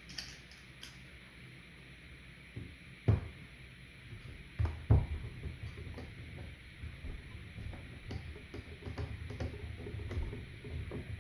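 Handling knocks and clicks: two sharp knocks about three and five seconds in, with softer clicks and rattles scattered between.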